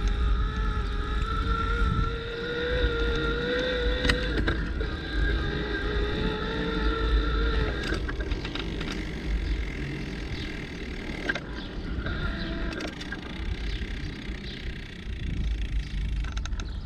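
Bicycle ride on a forest track: heavy wind rumble on the microphone and tyre noise, with a steady whine that rises a little and drops about four seconds in. A few sharp knocks come from bumps along the way.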